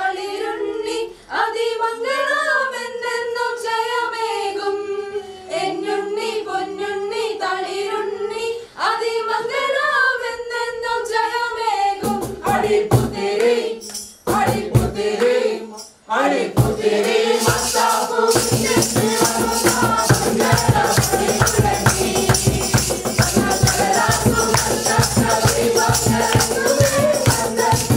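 A mixed group of voices singing a Christmas carol unaccompanied. About twelve seconds in, hand claps and rattling hand percussion come in, and from about eighteen seconds they keep a fast, steady beat under the singing.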